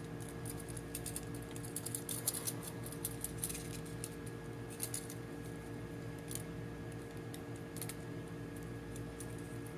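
Faint, scattered small clicks and ticks of a small screwdriver driving tiny screws into a plastic compass mount, with plastic drone parts being handled, over a steady background hum.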